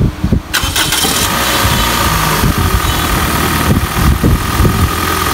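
The Toyota Noah's newly fitted replacement engine starts about half a second in and settles into a steady idle, with a thin steady whine over the running.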